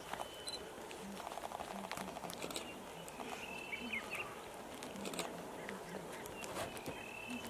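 Male lions feeding on a buffalo carcass: irregular wet crackling and crunching as they tear and chew meat and hide. A bird chirps a few short whistled notes in the background.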